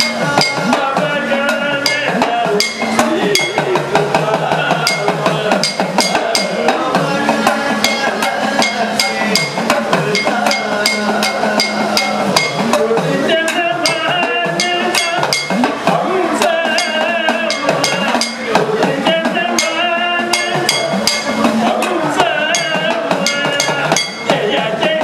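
Sopana sangeetham: an elderly man's voice singing a slow devotional melody, accompanied by the pitch-bending edakka hourglass drum and a chengila gong struck in a steady rhythm throughout.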